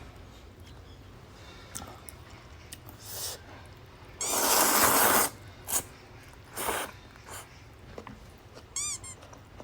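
Slurping jjamppong noodles and broth: a few short, breathy slurps, the longest and loudest lasting about a second midway, with a brief squeak near the end.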